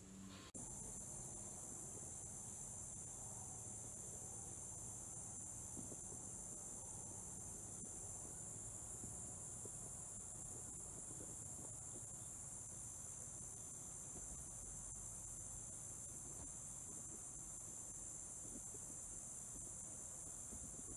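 Steady, high-pitched insect chorus of crickets trilling without a break, starting about half a second in.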